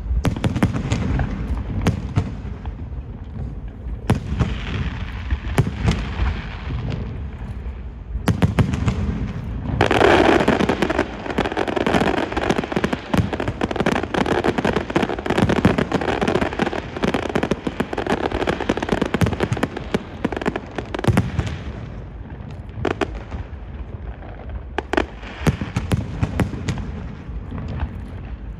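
Fireworks display: a continuous run of bangs and crackles from bursting shells, thickening into a dense, louder barrage of crackling for about ten seconds from a third of the way in.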